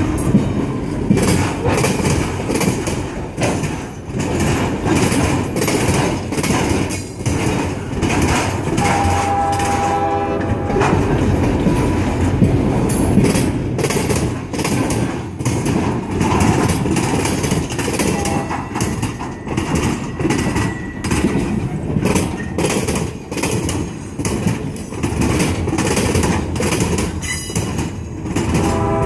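Freight train of loaded military flatcars rolling past close by: a steady rumble with rapid, regular clicking of steel wheels over rail joints. A brief pitched tone sounds about nine seconds in and again at the very end.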